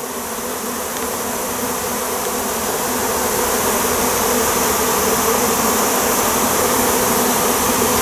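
A swarm of honey bees buzzing in a dense, steady hum as the bees move into a hive box, the hum growing gradually louder.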